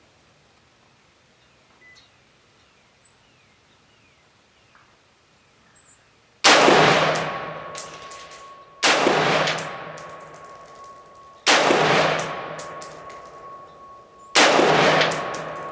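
Radical Firearms RF-15 AR-15 rifle in .223/5.56 firing 55-grain Czech ammunition: four single shots about two and a half to three seconds apart, starting about six seconds in. Each shot rings out in a long echo, with small metallic clinks after it.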